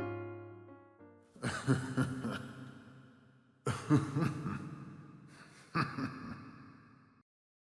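Soundtrack music: piano notes fade out, then three loud struck chords or hits about two seconds apart, each ringing down, before the sound cuts off near the end.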